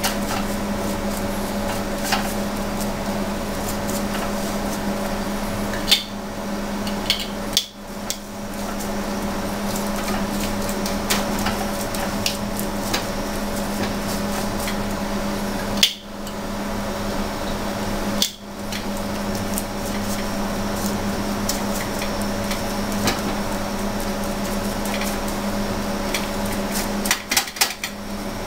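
A basting brush dabbing and scraping barbecue sauce onto ribs on a metal baking tray, with occasional sharp clicks and knocks, over a steady hum.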